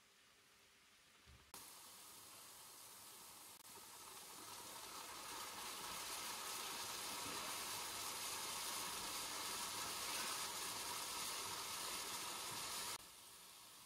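Oyster mushrooms and sliced onion sizzling in oil in a frying pan. The sizzle starts suddenly, grows louder about four seconds in as the onion goes into the pan, and drops off abruptly near the end.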